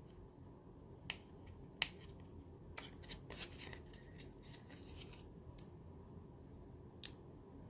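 Faint, scattered small ticks and crackles of fingernails picking at the corner of an adhesive sheet to lift its backing, about half a dozen over several seconds.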